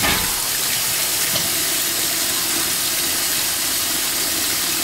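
Kitchen tap running steadily into a stainless steel pot of callaloo leaves, with splashing as hands swish the leaves in the water. A brief splash or knock right at the start.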